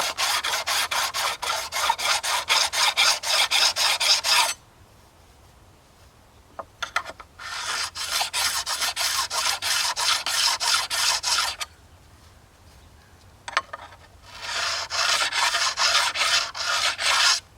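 Hand file rasping back and forth in quick, even strokes across the joints between edging-mill rail sections, evening out the misaligned joints. It comes in three bouts with short pauses between them.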